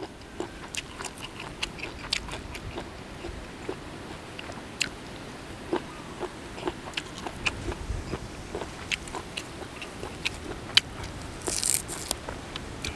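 Close-up chewing of a crunchy golden apple snail salad (koi hoi cherry): a run of short, sharp, irregular crunches. Near the end comes a brief rustle as a sprig of fresh dill is torn.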